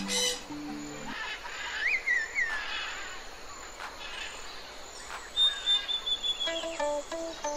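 Birds chirping and calling over a faint hiss on a relaxation soundtrack: soft music notes fade out about a second in, a chirp rises and falls around two seconds in, a long steady whistle-like call follows past the middle, and a gentle stepping melody comes back near the end.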